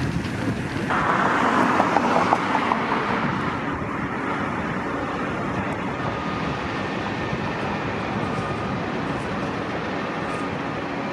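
Steady road traffic noise, louder for about two seconds starting a second in.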